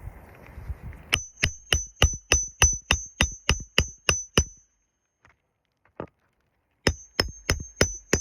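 Hammer driving roofing nails to fasten a new asphalt shingle: a steady run of about a dozen sharp metallic strikes, around three a second, each with a brief ring. After a short pause and one lone knock, a second run of strikes begins near the end.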